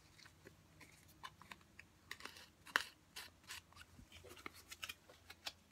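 Herb grinder being opened and handled: light scratching and small irregular clicks, with one sharper click a little under three seconds in.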